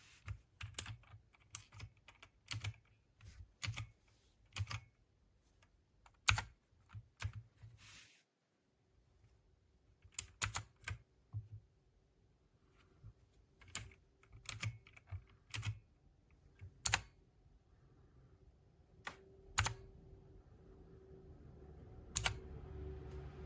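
Keys of a 60% mechanical keyboard with brown switches being pressed: separate clacking keystrokes at an uneven pace, often two or three in quick succession with pauses between. A faint low hum builds near the end.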